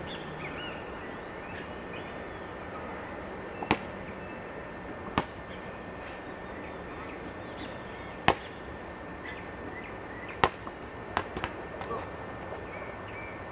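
Outdoor ambience: a steady hiss with faint bird chirps, broken by about half a dozen sharp, separate clicks at irregular intervals.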